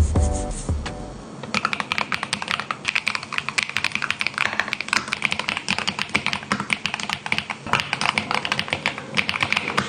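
Background music ends about a second in, then fast typing on an ATK RS6 Air magnetic-switch mechanical keyboard: a dense, continuous run of key clicks.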